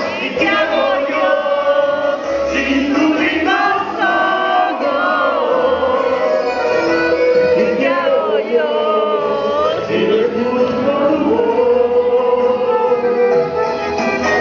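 Vallenato song sung by male singers into microphones over instrumental accompaniment with a steady bass line, amplified through the hall's sound system.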